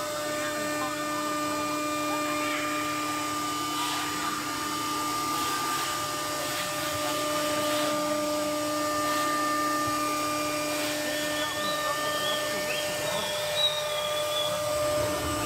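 Automatic tool-change CNC router running with a steady electric whine, a pitched hum with overtones. The spindle head is lowering its tool onto the tool-length sensor.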